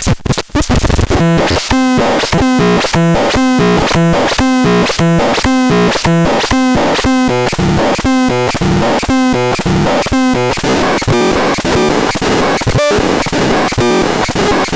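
Homemade DIY synthesizer playing a harsh, noisy sequence of short pitched notes, a little over two a second, that turns into a more irregular noisy texture about ten seconds in.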